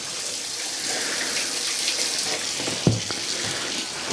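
Water pouring steadily into an empty worm farm septic tank as it is filled, growing slightly louder in the first second. A single knock about three seconds in.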